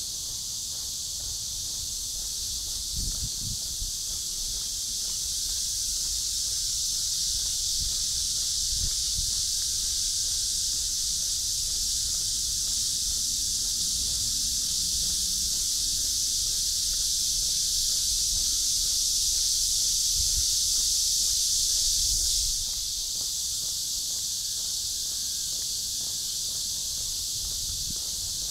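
A high, steady chorus of insects, the kind of shrill summer buzz that cicadas make. It slowly swells and then drops off abruptly about 22 seconds in, with a quieter chorus going on after.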